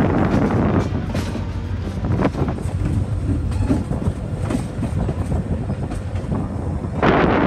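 Train rolling along with a steady low rumble, its steel wheels clicking irregularly over rail joints. About seven seconds in, a louder rushing noise like wind comes in.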